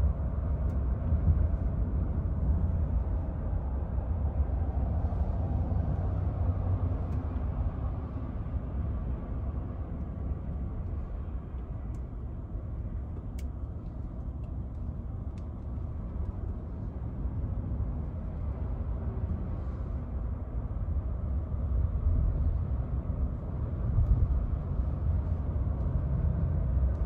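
Ford F-150 Lightning electric pickup driving, heard from inside the cab: a steady low rumble of road and tyre noise, easing a little in the middle and building again near the end.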